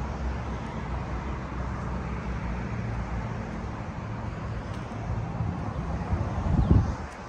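A Ford F-350's 6.7-litre Power Stroke turbo-diesel V8 idling with a steady low rumble. Near the end there is a brief louder low gust of rumble.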